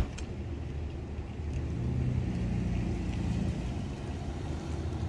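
A car pulling away and driving slowly past at low speed; its engine hum swells about two seconds in and eases off toward the end. A short sharp click at the very start.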